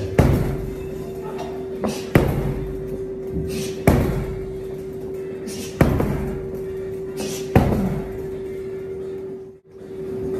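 Heavy punching bag struck hard by kicks and punches, about five heavy thuds roughly two seconds apart. Music with a steady held note plays underneath, and the sound drops out briefly near the end.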